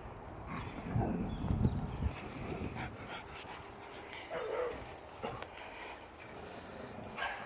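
Dogs at play: scuffling thumps in the first couple of seconds, then a few short dog yelps, one about halfway through and one near the end.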